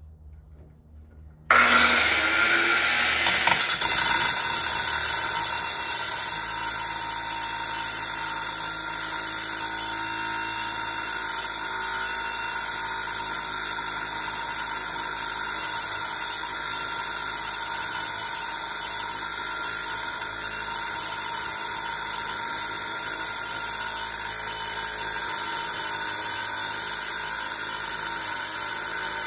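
Angle grinder spinning up with a rising whine about a second and a half in, then running steadily as its disc cuts into the metal casing of a small compressor.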